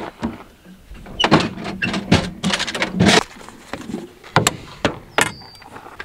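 Steel crowbar knocking and scraping against the metal underside of a MacDon draper header, a string of sharp irregular clanks as it is worked in to pry at the draper belt splice.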